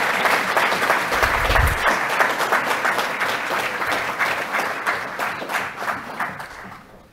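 Audience applauding, a dense patter of many hands clapping that fades away over the last two seconds or so.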